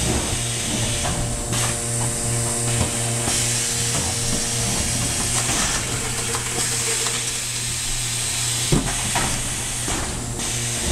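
E-4000 case erector running through its cycle: a steady electrical hum with machine clatter and hissing air that swells and fades every second or two. A sharp knock comes about nine seconds in.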